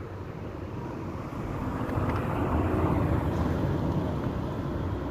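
A motor vehicle going past: engine and road noise swell to a peak about three seconds in, then ease off.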